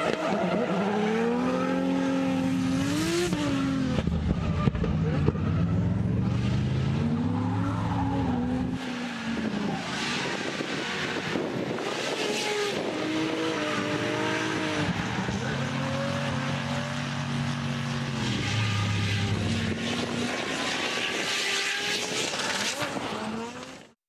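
Toyota GR Supra drift car's engine revving up and down again and again through a long drift, with tyres squealing and hissing as they spin. The sound cuts off abruptly near the end.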